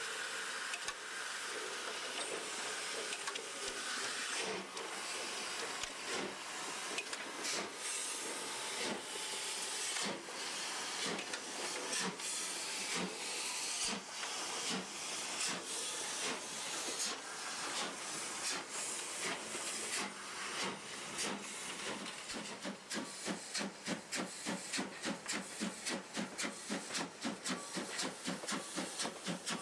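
Steam locomotive sound: a steady hiss of steam broken by exhaust chuffs, which settle into a regular beat of about three a second near the end as it picks up speed.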